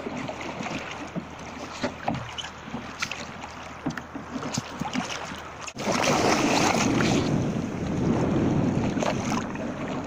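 Sea water lapping and slapping against a wooden sailing kayak's hull, with small knocks and wind on the microphone. About six seconds in, a loud rush of splashing water starts abruptly as a person slides off the deck into the sea, and churning water continues after.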